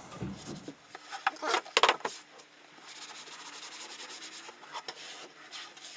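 Rubbing over freshly applied leatherette covering to buff it to a shine: a few short scrapes and knocks, then a steady hissing rub lasting a few seconds.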